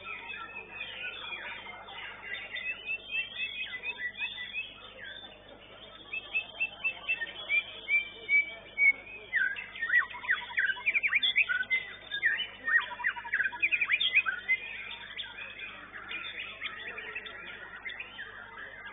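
White-rumped shama (murai batu) singing in a contest cage: a varied stream of rapid chirps and whistled notes, loudest in a fast run from about six to fifteen seconds in.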